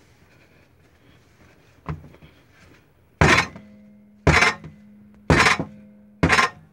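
Yeasted bread dough being beaten down onto a stone countertop by hand during kneading: a soft knock about two seconds in, then four heavy thuds about a second apart.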